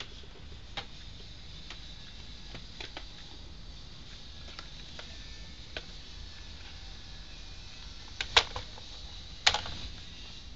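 Handling of a Polaroid instant camera: scattered light clicks, then two louder clacks about a second apart near the end.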